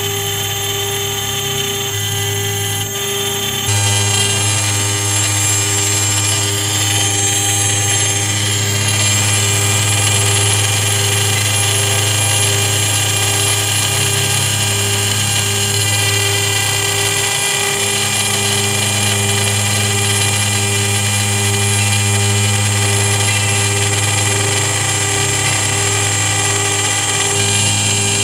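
CNC router spindle running at high speed while its small engraving bit mills a pattern into a thin metal sheet: a steady high whine over a low hum, getting louder about four seconds in.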